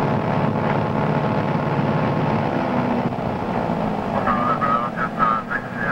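Twin piston aircraft engines running steadily at run-up power, heard from inside the cockpit, just after the magneto check. A wavering higher-pitched sound joins the engine noise from about four seconds in.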